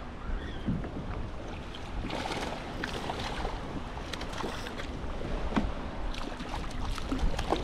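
Wind rumbling on the microphone in a fishing kayak, with scattered light clicks and knocks.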